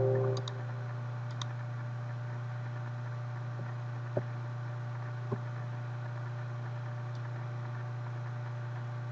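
Steady low electrical hum on the recording. A two-note chime fades out in the first half second, and two faint mouse clicks come about four and five seconds in.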